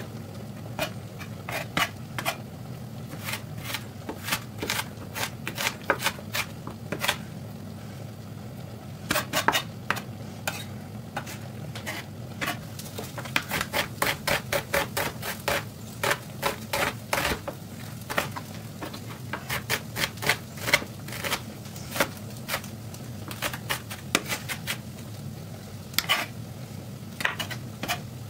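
A chef's knife chopping red onion on a cutting board: sharp knocks of the blade on the board in quick runs of several a second, with short pauses between runs, over a steady low hum.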